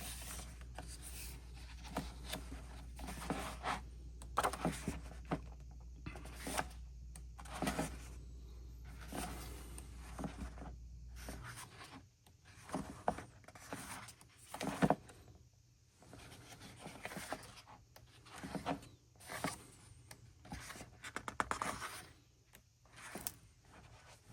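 Pages of an album photo book being turned and handled: irregular paper rustling, sliding and light rubbing. A low steady hum underneath stops suddenly about halfway through.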